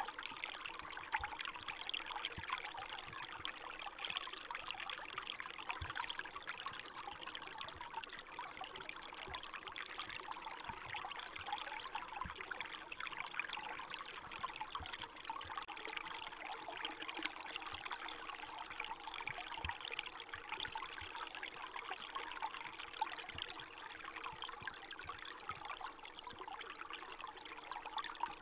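Small forest stream running under snow and thin ice, water trickling and splashing steadily.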